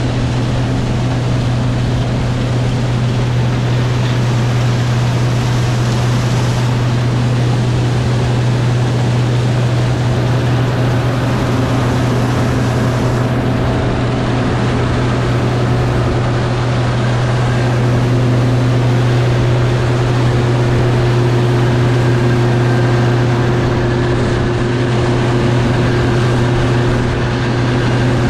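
Case IH 2388 Axial-Flow combine running steadily while harvesting soybeans: a continuous low engine and machine drone that holds steady throughout.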